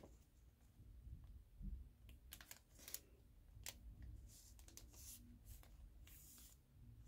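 Faint crinkling and rustling of a silver foil packet being handled and opened, with a photo card slid out of it, in a string of short crackles and clicks that come thicker from about two seconds in.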